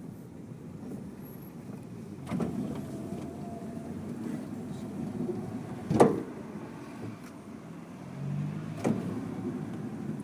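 Steady rumble of a vehicle ride, with three sharp clunks: one about two seconds in, the loudest around six seconds in, and another near nine seconds.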